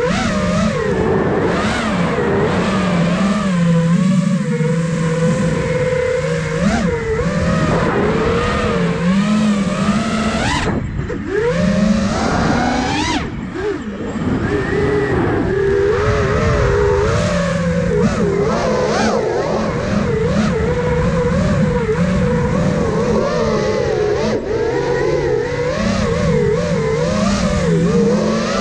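Brushless motors and propellers of a 5-inch FPV racing quadcopter, heard from its onboard camera: a buzzing whine whose pitch rises and falls constantly with the throttle. The throttle is chopped briefly about eleven seconds in and again around fourteen seconds, each time punched back up with a sharply rising whine.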